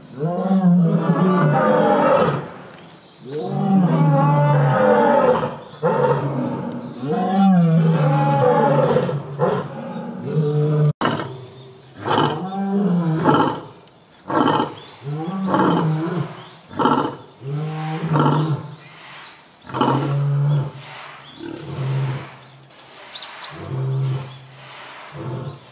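A lion roaring bout: several long, loud roars in the first half. They give way to a run of shorter roars about a second apart that fade toward the end.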